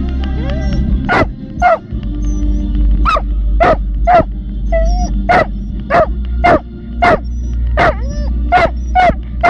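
A dog barking excitedly over and over, about a bark every half-second to two-thirds of a second, over a steady low rumble.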